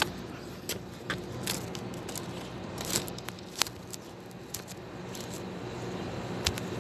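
Scattered light clicks and scrapes at irregular intervals over a steady low hum.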